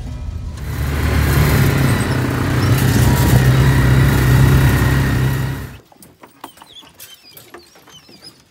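A vehicle's engine running with a steady low drone and a rush of road and wind noise as it drives along a dirt track; it cuts off suddenly about six seconds in, leaving quiet with scattered clicks and faint high chirps.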